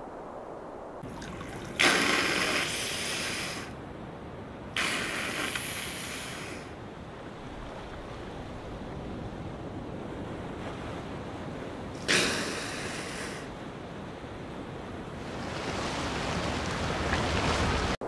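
Humpback whales blowing at the surface: three sudden, forceful exhalations, the first two about three seconds apart and the third several seconds later, each fading over a second or two, over a steady wash of sea. A longer rush of noise swells near the end.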